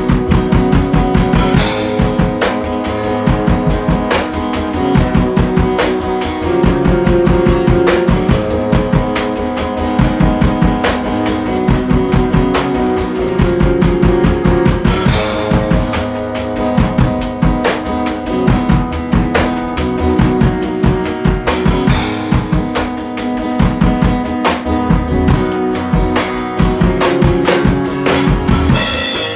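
Live home jam: a guitar riff played over a steady drum-kit beat with bass drum and cymbals, continuous and loud.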